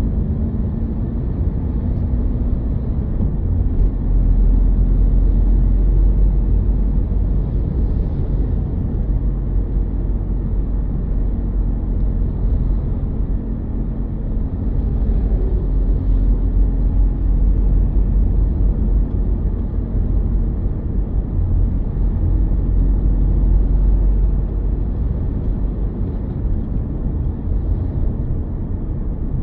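A moving car's steady low rumble of road and engine noise, deepest in the bass, with a faint engine hum wavering above it.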